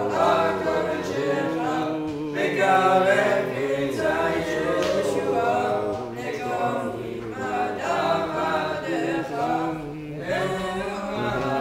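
Congregation singing a Chanukah song together, unaccompanied.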